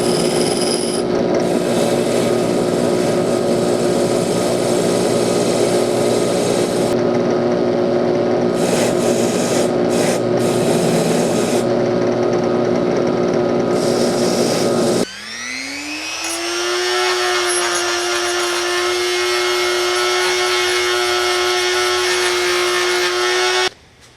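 Electric power tool running steadily under load with a rubbing, working sound. About fifteen seconds in it cuts out, then its motor spins up again in a rising whine and runs at a steady pitch until it stops abruptly near the end.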